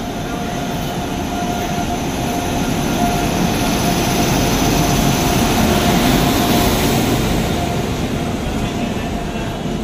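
Train rumble and wheel-on-rail noise that grows louder to a peak about six seconds in, then eases off.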